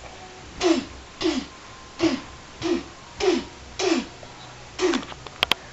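A person's voice making short grunting fight sound effects with the mouth, seven in a row at about one every 0.6 seconds, each dropping in pitch, then two sharp clicks near the end.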